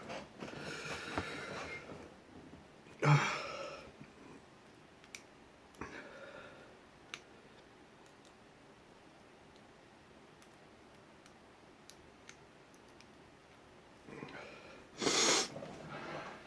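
Loud breaths through the nose: a longer one at the start, a sharp one about three seconds in and another near the end. Between them are faint scattered clicks of lock picks working in an ABUS 83/45 padlock.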